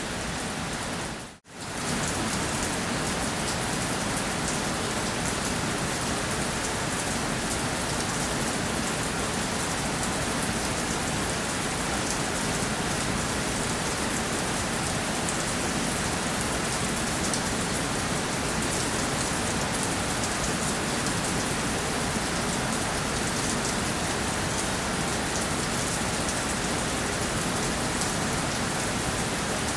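Steady rainfall, an even hiss of rain on a surface with fine drop patter. About a second and a half in it cuts out for a moment and comes straight back.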